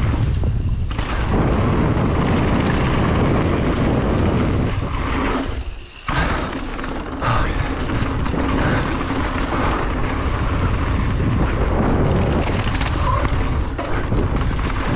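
Wind rushing over the microphone of a downhill mountain bike descending a wet dirt trail at speed, with tyre and bike rattle beneath. It drops briefly about six seconds in.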